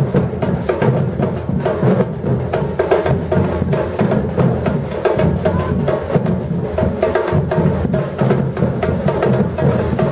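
Batucada drum ensemble playing a dense, steady groove: deep bass drums under rapid sharp strikes from the higher drums and percussion.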